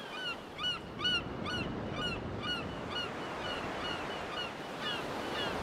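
Birds chirping in quick short calls, about two a second, over a steady wash of ocean surf.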